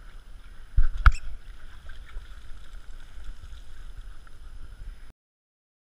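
Swimming-pool water sloshing with a low rumble, and two dull knocks close together about a second in. The sound cuts off abruptly about five seconds in.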